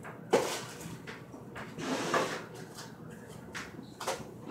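A sharp knock about a third of a second in, then fainter knocks and rattles about two seconds and four seconds in: kitchen drawers being opened and shut while someone searches through them.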